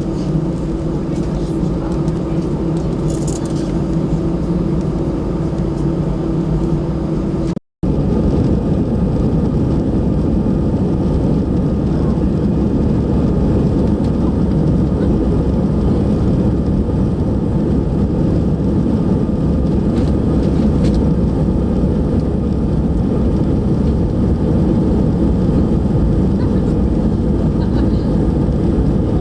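Airliner cabin noise: a steady rush of jet engines and airflow, with a steady hum in the first few seconds. The sound cuts out for an instant about seven and a half seconds in, then carries on as a fuller, rougher rumble.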